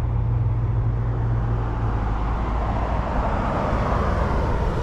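Street traffic: a car driving past, its road noise swelling over the last couple of seconds, over a steady low hum.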